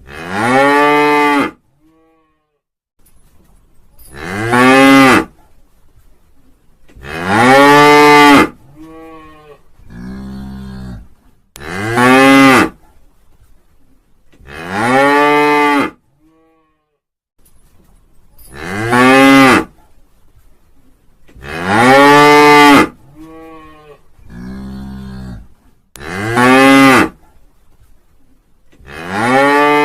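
Cow mooing over and over, a long call about every three seconds, each rising then falling in pitch. Twice a lower, rougher moo comes between the calls.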